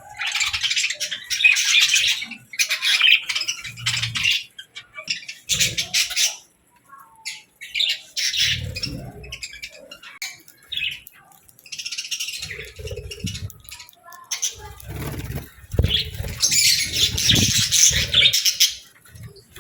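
Budgerigars chirping and chattering in bursts of quick high warbles with short pauses between. Low thumps come in among the chatter in the second half.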